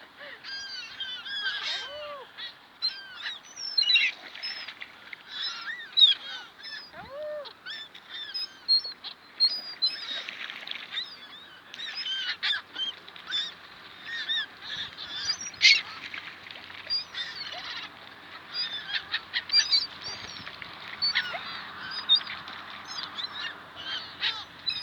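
A flock of gulls calling, many short squawking calls overlapping throughout.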